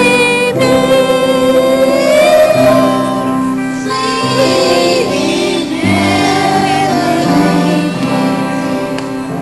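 A hymn in Lenape sung by young voices, the melody held and sliding over steady low accompanying chords that change every second or so.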